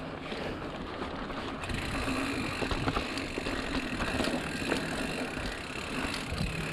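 Mountain bike rolling along a dirt trail: steady tyre rumble with rattles and clicks from the bike, and wind on the microphone. The noise grows brighter about a second and a half in.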